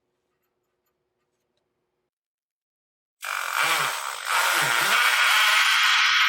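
Power drill boring mounting holes into the header. It starts suddenly about three seconds in, eases off for a moment, then runs steadily.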